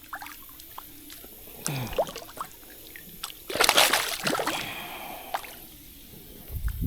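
Creek water trickling and dripping, with one louder splash about three and a half seconds in.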